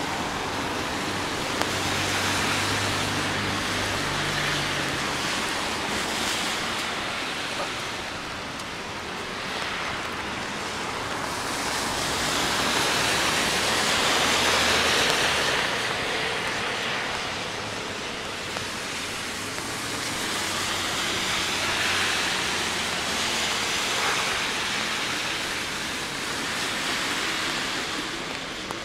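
Cars passing on a rain-wet city street, the hiss of tyres on wet pavement swelling and fading several times over a steady wash of rain, loudest about halfway through.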